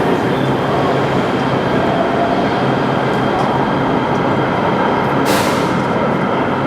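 LA Metro light-rail train running at an underground station platform: a steady, loud rumble with a low hum, and a short sharp hiss about five seconds in.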